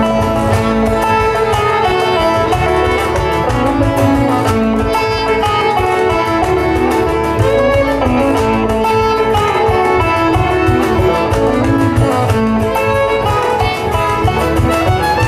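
Acoustic folk string band playing an instrumental break, with banjo picking over acoustic guitar, upright bass and fiddle.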